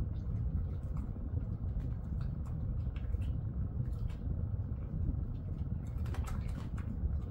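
A dog nibbling and licking small treat crumbs off a mesh cot: many small, irregular mouth clicks and crunches, busier about six seconds in, over a steady low hum.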